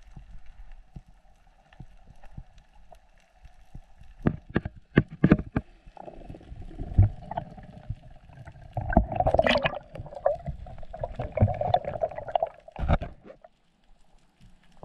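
Underwater recording of a freediving spearfisher swimming: water rushing and gurgling against the camera, sharp clicks and knocks, and a faint steady whine underneath. The water noise is loudest about nine to thirteen seconds in and then drops away.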